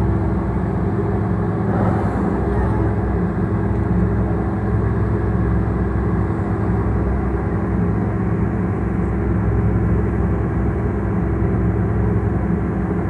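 Boat engine running steadily beneath the deck: a low, even hum that holds one pitch throughout.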